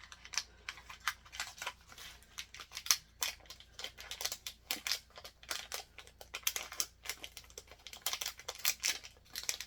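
Packaging of a small mystery pin being handled and opened by hand: irregular crinkling, rustling and small clicks, with one sharper click about three seconds in.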